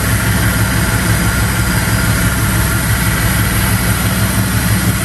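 1996 Impala SS's 5.7-litre LT1 V8 idling steadily with the air conditioning switched on.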